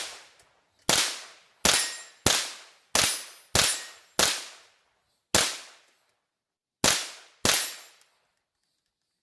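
.22 LR semi-automatic rifle shots from an AR-15 running a CMMG .22 LR conversion kit, firing CCI Stinger rounds: nine shots at an uneven pace, mostly about two shots a second with two short pauses, each a sharp crack with a brief ringing tail. Every round fires and cycles without a stoppage.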